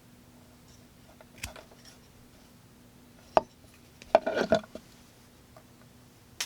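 Sharp S35VN folding-knife blade cutting paracord: a few sharp clicks and snaps, with a short rasping cut about four seconds in.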